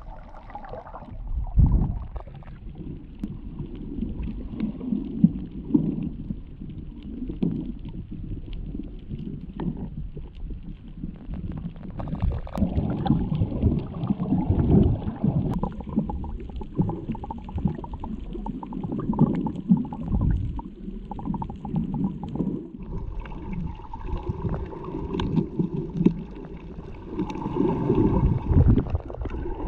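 Muffled underwater gurgling and sloshing of seawater in irregular surges, heard through a GoPro's waterproof housing while snorkelling.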